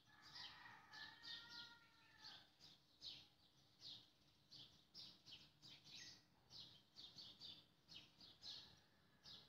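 Faint chirping of birds in the background, short high chirps repeating irregularly about one to two times a second, with a few longer whistled notes in the first couple of seconds.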